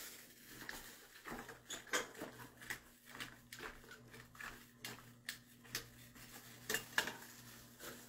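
Metal tongs clinking and scraping against a metal stockpot while turning over chunks of vegetables and mushrooms: a run of irregular light clicks and knocks.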